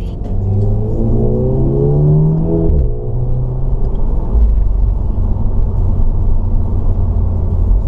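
Car engine and road noise heard inside the cabin: the engine note rises as the car accelerates, drops abruptly about three seconds in, then settles into a steady low rumble of engine and tyres.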